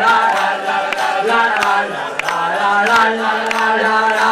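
A group of people singing a song together, with hand claps now and then.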